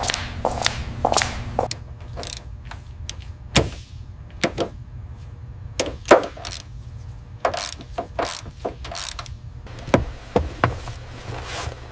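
Hand tools working on metal: an irregular series of sharp mechanical clicks and clanks over a steady low hum.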